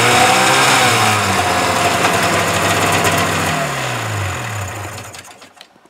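Polaris Indy snowmobile's two-stroke engine running, revving briefly near the start, then winding down and stopping about five seconds in.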